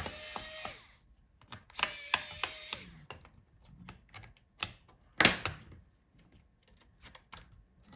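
Small metal and plastic clicks and taps from a screwdriver and the laptop's heatsink being worked loose, with two short rasping stretches near the start and one louder click a little after five seconds.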